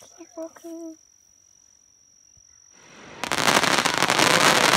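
Aerial fireworks crackling: a dense, rapid run of sharp pops that starts suddenly about three seconds in and is the loudest sound here.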